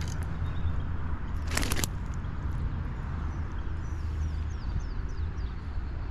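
A steady low rumble with a short burst of noise about a second and a half in, and a bird calling a quick run of about six falling chirps near the middle.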